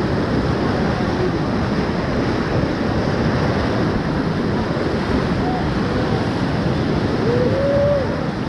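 Steady rushing of a whitewater river rapid breaking around and against an inflatable raft surfing in a wave.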